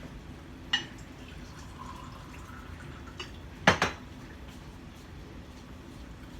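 Glass clinking and water being poured into it, then a loud knock about four seconds in as something is set down on the table.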